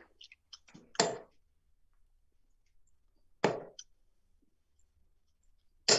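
Two darts thudding into a Winmau Blade 5 bristle dartboard, about two and a half seconds apart.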